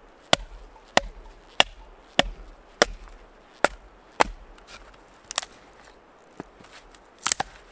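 Batoning: a wooden baton knocks on the spine of a full-tang knife with a 16 cm C70 spring-steel blade, driving it through a log to split firewood. Seven sharp, evenly spaced knocks come about every 0.6 s, then a few lighter ones near the end.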